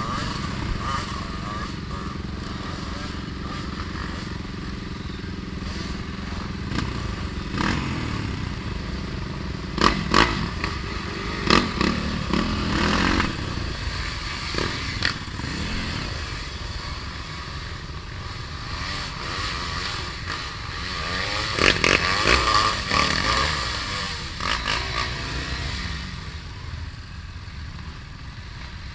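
Dirt bike engine running at low speed on a rough trail, the revs rising and falling, with a few sharp knocks and clatters from the bike partway through.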